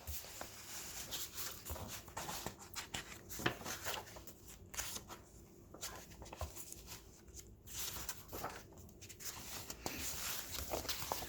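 Paper instruction booklets being handled and their pages turned: irregular soft rustling and crinkling with small taps, coming and going.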